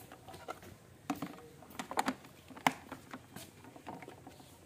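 Light clicks and knocks of a used rice cooker being handled, about half a dozen separate ones, the sharpest a little after two seconds in.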